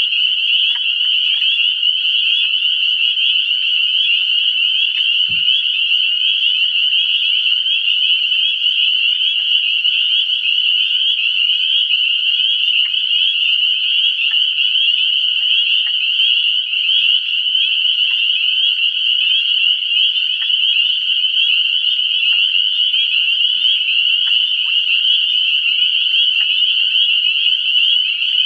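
A dense spring chorus of many frogs calling at once, a continuous high-pitched trilling that never breaks. A soft low knock comes about five seconds in.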